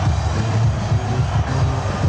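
Music with a heavy, pulsing bass beat in an electronic style.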